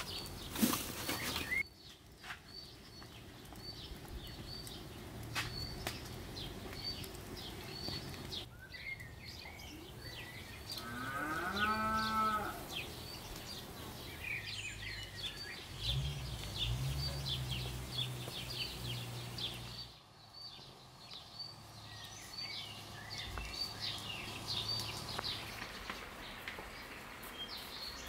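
A cow mooing, first a rising call about halfway through, then a longer low moo a few seconds later. Small birds chirp over and over in the background.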